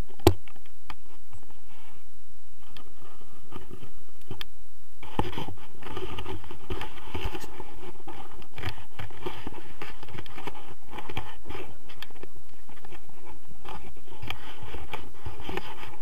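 Close rustling and scraping of clothing and harness being handled right at the camera, with many small scratchy knocks. A sharp click comes just after the start, and the rustling grows denser and louder about five seconds in.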